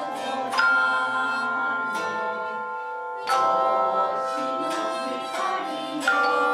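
Tone chimes struck together in chords, three new chords about two and a half to three seconds apart, each left ringing with a long, steady sustain, over a softer layer of voices singing along.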